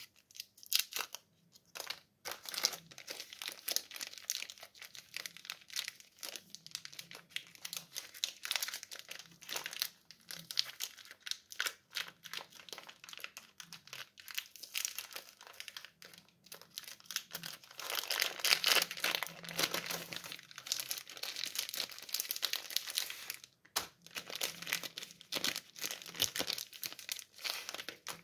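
Candy wrappers crinkling and tearing as sweets are unwrapped by hand: a dense run of crackles, loudest a little past halfway, with a couple of brief pauses.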